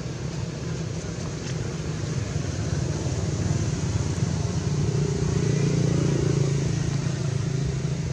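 Steady low motor drone, growing a little louder about halfway through and easing off near the end.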